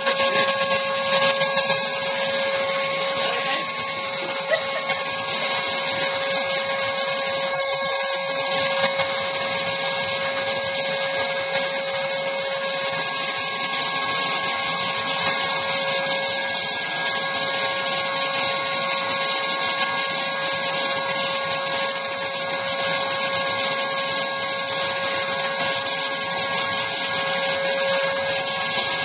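Spray-tan airbrush machine running: a steady motor whine with the hiss of the tanning spray leaving the gun.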